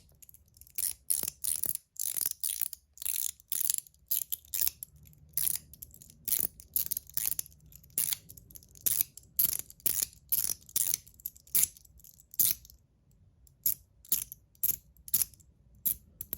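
01 EDC fidget slider with a spring-loaded ball-detent mechanical liner being slid back and forth, snapping into its detents with sharp metallic clicks, about two a second in an uneven rhythm. The liner is fitted with soft springs in place of the stiff ones.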